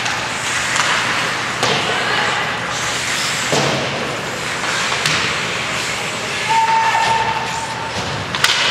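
Ice hockey rink sound during play: a steady wash of skates and sticks on the ice and spectators, broken by a few sharp clacks of stick and puck, the sharpest near the end. About two-thirds through a long, flat held tone sounds for about a second.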